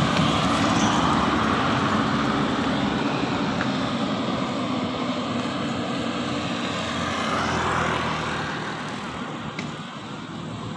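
Road traffic: a bus's engine and tyre noise slowly fading as it drives away. A motorcycle passes close by about seven seconds in.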